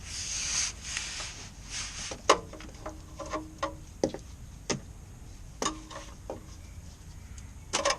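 Rustling at the start, then a series of sharp metallic clinks and knocks, some briefly ringing: hand tools being handled while getting to the oil filter.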